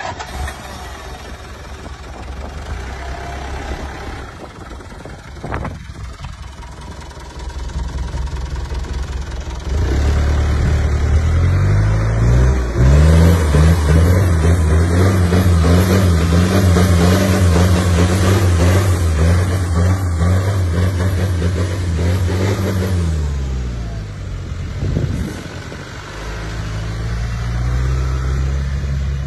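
Engine of a turbocharged, engine-swapped Daihatsu Taft GT off-roader, running under load as it drives on dirt. The low engine note gets much louder about a third of the way in and is held for roughly thirteen seconds. It then eases off with a falling pitch and picks up again near the end.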